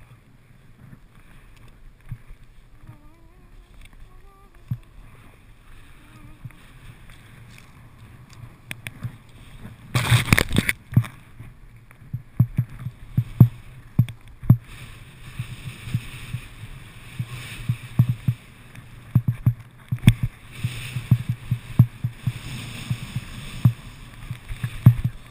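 Skis sliding and scraping over packed snow with air rushing past, picked up by a body-mounted action camera. About ten seconds in comes a loud rushing burst, then frequent dull knocks and a steady hissing scrape as the skis run faster.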